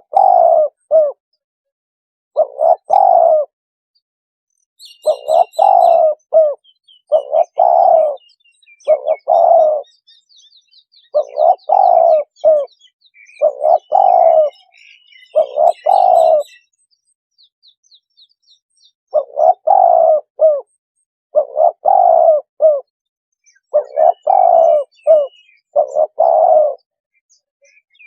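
Spotted dove cooing over and over, each phrase two or three low coos, repeated every second or two with a short break about two thirds of the way through: a lure call recording for drawing in wild spotted doves. Faint high chirps of small birds come and go behind it.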